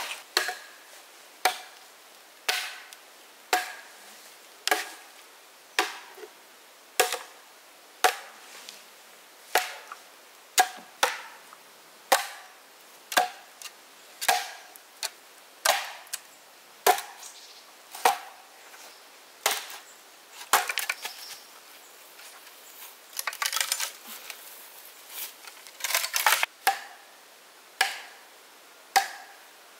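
Wood being chopped with an axe in sharp single blows about once a second, with quicker runs of lighter strikes about two thirds of the way through.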